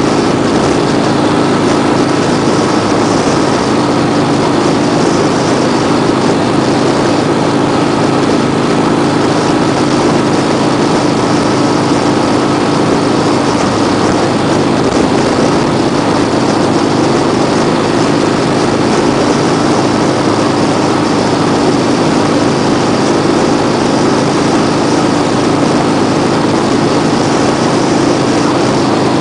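Vehicle engine and road noise while cruising at a steady speed: one constant drone that keeps the same pitch and loudness throughout.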